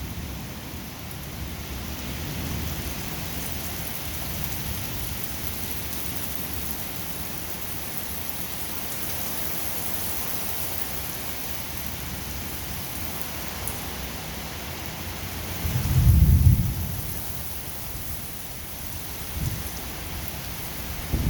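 Steady rain falling, an even hiss throughout. A deep low rumble swells up about three quarters of the way through and is the loudest moment, with a shorter, weaker one shortly after.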